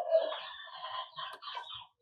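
A short pause between a spotted dove's coos: the last coo dies away at the start, leaving faint high chirping of other birds.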